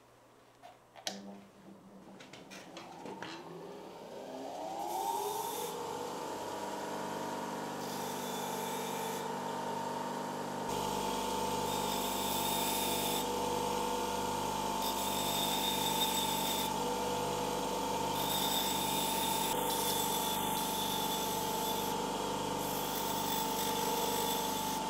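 Bench grinder switched on about a second in, its motor whine rising as the wheel spins up, then running at a steady pitch. Steel Victorinox tweezer tips are pressed to the wheel in repeated short passes, each adding a harsh grinding hiss.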